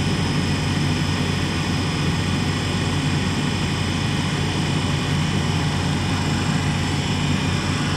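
A Bitzer refrigeration condensing unit running steadily, its compressor and condenser fan making an even drone with several held tones. It is running normally with a full charge of R22 refrigerant, its suction line frosting.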